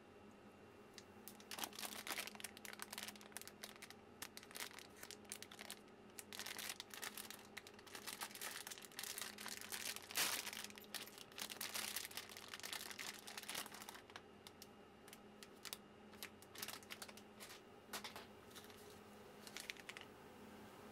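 Plastic packaging crinkling and rustling in irregular fits as it is pulled open and crumpled by hand.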